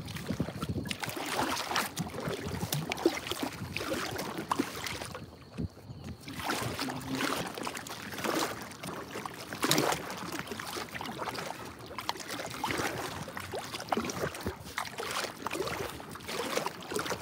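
Small waves lapping and slapping irregularly against the hull of an inflatable boat, with a brief lull about five seconds in.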